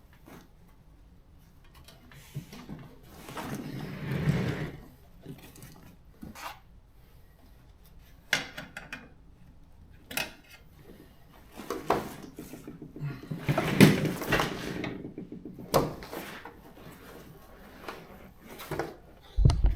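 Irregular knocks, clicks and scrapes of hands working on a car seat's parts, with two longer, louder rubbing scrapes, one about four seconds in and one about fourteen seconds in.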